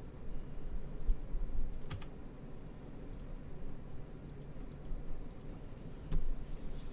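Irregular clicks of a computer keyboard and mouse, coming in small clusters with pauses between them, over a low steady hum.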